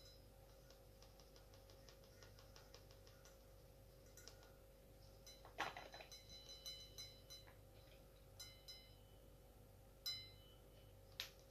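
Faint rhythmic ticking, several ticks a second, as a handheld mesh-ended static flocking applicator is shaken over a model figure, then a sharp click with a short ringing a little past halfway and a few more clicks near the end, over a faint steady hum.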